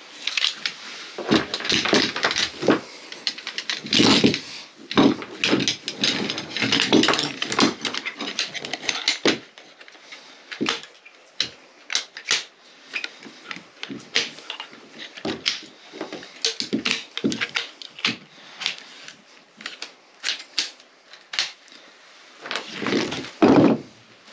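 Folding camp chair being assembled: its metal frame poles clicking and clattering as they are snapped into place, with rustling of the nylon seat fabric and a longer rustle near the end.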